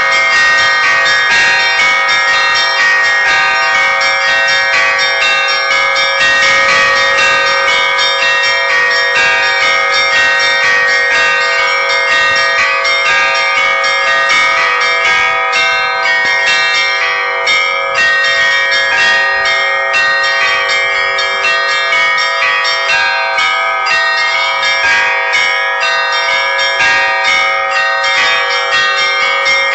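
Church bells ringing in a continuous peal: rapid, dense strikes over a sustained ring of many overlapping tones.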